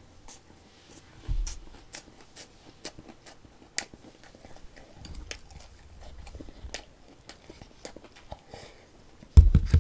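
Close-miked chewing of a lettuce wrap of boiled pork: many small crisp crunches and wet mouth clicks, with a low thump about a second in and a louder one near the end.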